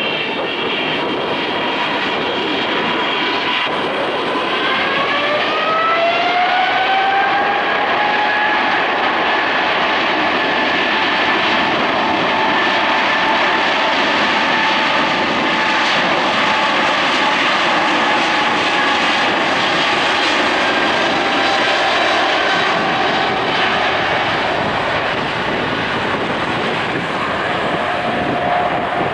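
Boeing 777-300ER's GE90-115B turbofan engines spooling up for takeoff: a rising whine about four to seven seconds in, then a steady, loud jet engine sound at takeoff thrust as the airliner rolls down the runway.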